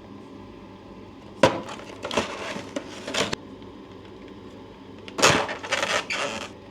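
Toy packaging being handled and opened: two bursts of crinkling and crackling, the first starting sharply about a second and a half in, the second about five seconds in.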